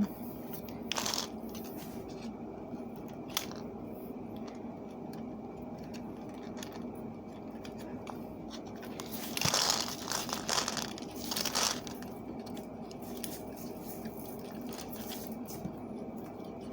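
Wire being bent, twisted and cinched with pliers: short scrapes and crinkles about a second in, again a little later, and a longer cluster around the middle, over a steady low hum.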